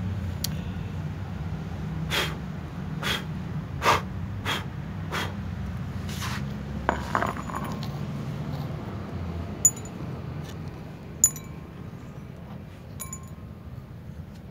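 A dish clinking: a run of about six short taps, then three sharper ringing clinks further on, over a steady low rumble.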